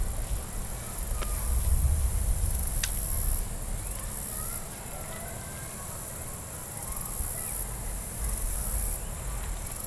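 Pond-bank ambience: a high insect buzz swelling and fading in waves, with wind rumbling on the microphone and two short clicks about one and three seconds in.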